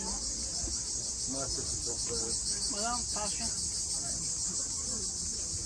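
A steady, high-pitched insect chorus shrilling without a break, with indistinct voices of people talking underneath.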